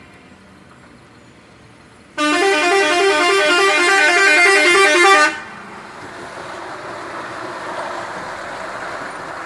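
Bulk cement tanker truck's air horn sounds loudly for about three seconds, starting about two seconds in, playing a quick up-and-down run of alternating notes. It is followed by the steady, quieter noise of the truck.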